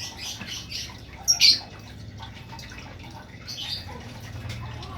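Yellow-vented bulbul (trucukan) giving a short harsh call about a second and a half in, then a fainter call a couple of seconds later.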